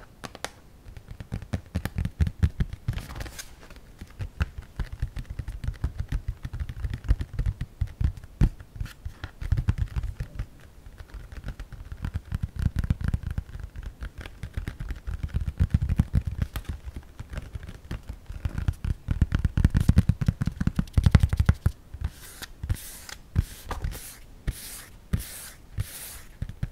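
Fingernails tapping and scratching rapidly on the lid of an Acer Aspire 3 laptop held right against the microphone, many quick ticks over a deep thudding. Near the end comes a run of brief scratching strokes, about two a second.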